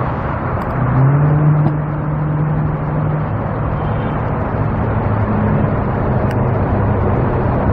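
Motor vehicle engine running with road traffic, a steady engine hum under a wash of traffic noise.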